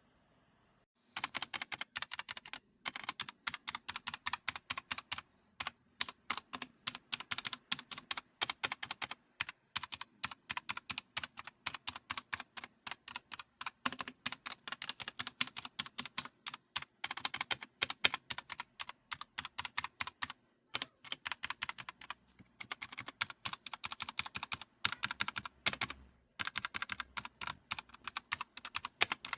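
Typing on a Redragon Castor K631 Pro mechanical keyboard: a fast, steady run of keystroke clicks that starts about a second in, with a few short pauses.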